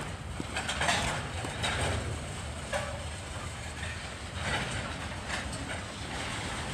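Freight train of tank cars rolling past: a steady low rumble of wheels on rail, broken by irregular sharp metallic clanks from the cars.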